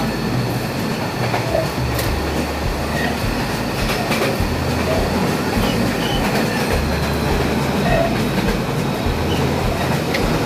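Running noise of a passenger train heard from inside the carriage: a steady rumble with clickety-clack from the wheels on the rails, and a few sharp metallic clinks scattered through it.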